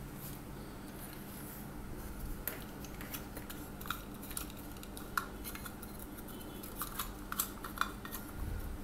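Scattered light clicks and small metallic clinks from handling a car power inverter, its circuit board being slid out of the aluminium case. The clicks come closer together in the second half, over a faint steady hum.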